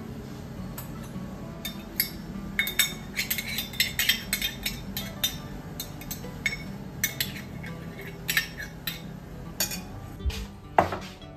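Metal spoon clinking and scraping against a bowl while stirring a yogurt cake mixture, with irregular clinks through most of the stretch and one louder knock near the end.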